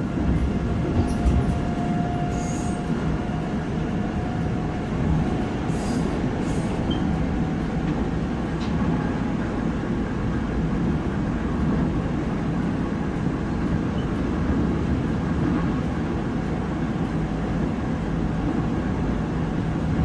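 Seoul Subway Line 3 train running at speed over a river bridge, heard from inside the carriage: a steady, even rumble of wheels on track.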